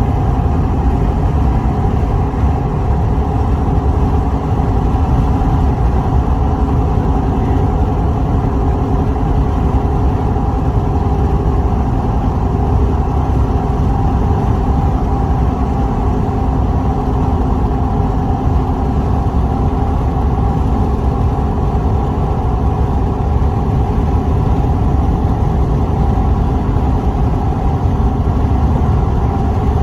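Steady, unbroken wind with a deep rumble and a few faint steady tones held above it.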